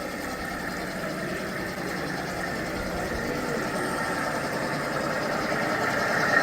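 Large-scale model diesel locomotives running with their simulated diesel-engine sound playing from onboard speakers. The sound is steady and slowly grows louder as the train draws nearer.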